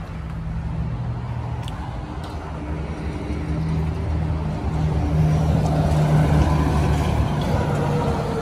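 Heavy diesel vehicle engines running: highway traffic with trucks and buses. The engine drone is steady and grows louder past the middle.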